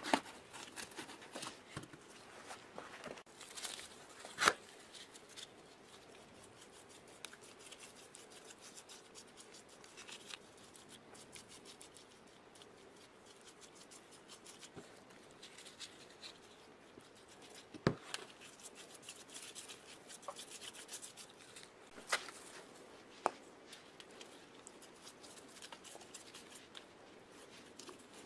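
Quiet handling of metal compressor parts and plastic containers by gloved hands: light rubbing and scraping with scattered sharp clicks and knocks, the loudest at the very start and about four and a half seconds in.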